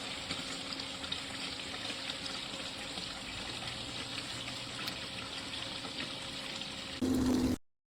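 Water from an Intex 56028 LED waterfall pool fountain splashing steadily into the pool. Near the end a brief louder stretch with a low hum, then the sound cuts off.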